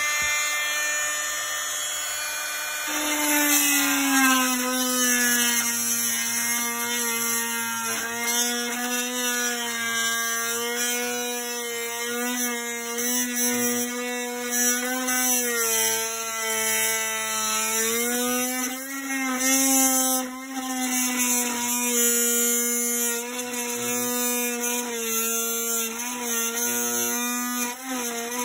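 Cordless oscillating multi-tool with a metal-cutting blade running continuously as it cuts through a metal dash support bracket. Its steady buzzing pitch drops about three seconds in as the blade bites, then wavers up and down with the load.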